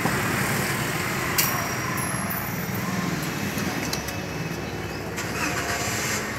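Toyota Grand Avanza's 1.3-litre four-cylinder petrol engine idling steadily. There is one sharp click about 1.4 seconds in.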